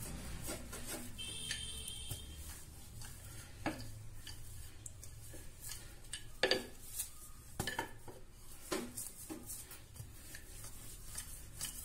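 Wooden rolling pin working dough under a plastic sheet on a countertop: a low rumble of rolling with scattered light knocks and clicks, the sharpest a little past the middle.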